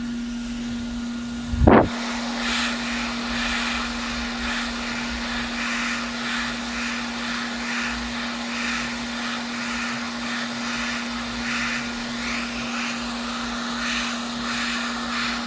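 A small electric blower motor running steadily, a constant hum with hiss, from the repair-bench equipment. There is a single thump about two seconds in.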